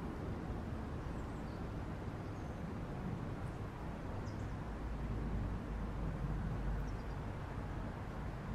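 Steady low rumble of distant city traffic, with a few faint, brief bird chirps scattered through it.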